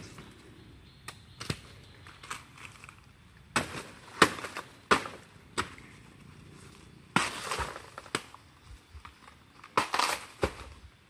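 Dry banana leaves and stalks crackling and snapping as they are handled and stepped on: an irregular string of sharp snaps and crunching rustles, heaviest in the middle and again near the end.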